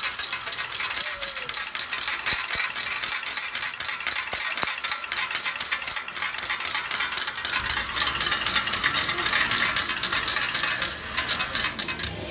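Arcade token dispenser paying out a long stream of metal tokens into its metal cup: a rapid, continuous clatter of clinking tokens that stops near the end.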